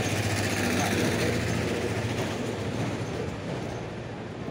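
A motor vehicle's engine running with a steady low hum. It grows slightly louder about a second in, then fades away toward the end as it moves off.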